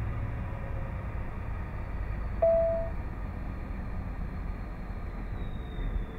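Semi-truck engine and road noise heard inside the cab, a steady low rumble as the truck rolls slowly through a weigh-station lane. About two seconds in, a single loud beep sounds for about half a second.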